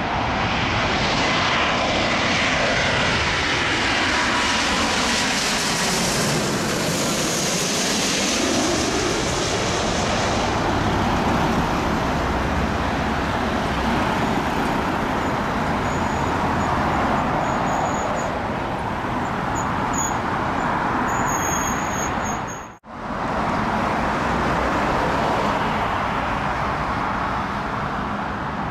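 Jet engine noise from a twin-engine widebody airliner on final approach passing low overhead, its pitch sweeping down as it goes by. A lorry then drives past close by. After an abrupt cut near the end, a steady jet rumble from the next arrival, an Airbus A380, approaching.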